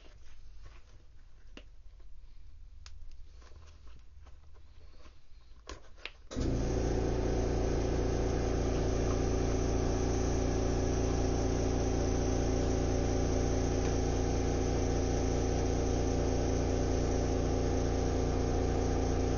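Faint handling clicks, then an electric machine starts abruptly about six seconds in and runs loud and steady with a fast regular beat.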